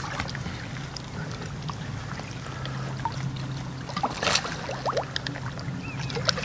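Lake water sloshing and splashing around a floating carp sling as it is worked in the shallows and a linear mirror carp is released from it. The water noise is soft and irregular, with a sharper splash about four seconds in and another near the end.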